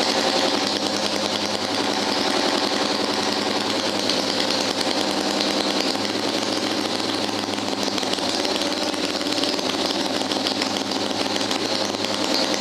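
Vintage Fuji two-cylinder auto-race motorcycle engine running steadily. It was leaking oil and running poorly.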